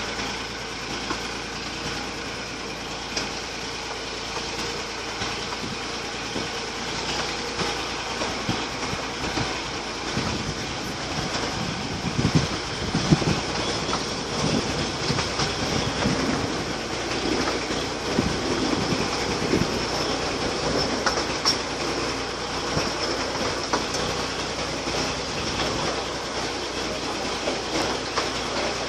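Miniature railway carriage running along 15-inch gauge track: a steady rumble and rattle of wheels on rail with scattered clicks, and a few louder knocks a little before halfway.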